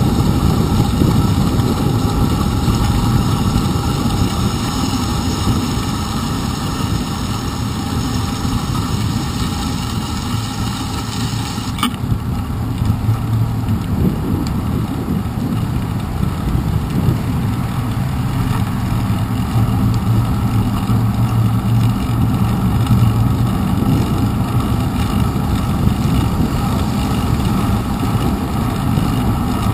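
Steady rumble of a bicycle rolling on wet pavement: tyre and wind noise picked up by the handlebar-mounted GoPro Hero 2, with one click about twelve seconds in.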